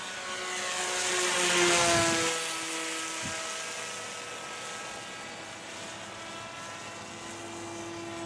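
Electric motor and pusher propeller of a Bixler 2 RC glider in flight, a steady whine that grows louder and drops in pitch as the plane passes about two seconds in, then carries on evenly.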